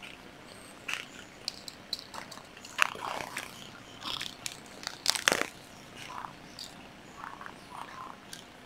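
Scattered light plastic clicks and knocks from small Makita 10.8 V lithium-ion tool battery packs being handled, and from multimeter probes and buttons. The strongest knocks come about 3 and 5 seconds in.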